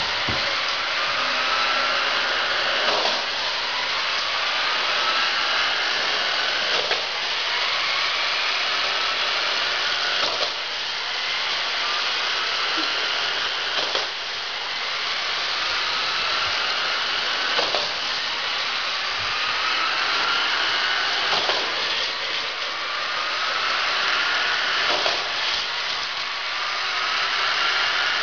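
Two K'Nex orange speed booster motors whirring steadily as the toy coaster car laps the track. About every three and a half seconds there is a sharp clack, and a motor whine then climbs in pitch, in a repeating cycle.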